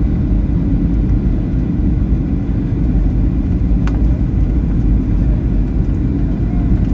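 Steady low cabin rumble of a Boeing 737-800 in flight: the CFM56-7B engines and the airflow over the fuselage, heard from a window seat over the wing during the descent. A single small click sounds about four seconds in.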